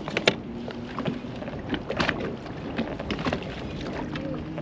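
Wind and water noise around a fishing boat, broken by several sharp knocks and clicks, the strongest near the start and about two and three seconds in, over a faint steady low hum.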